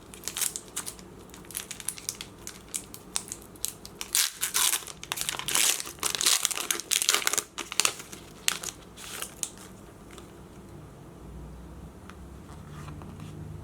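Foil Pokémon trading-card booster pack wrapper crinkling and being torn open by hand, a dense run of crackles that is busiest midway and dies down after about ten seconds.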